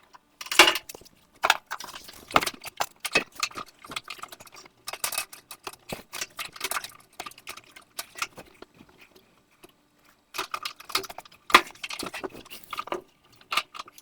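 Irregular metallic clinks, knocks and rattles of hands working inside an opened Samsung dryer cabinet, fitting the drive belt back onto the motor shaft, with a brief pause about ten seconds in.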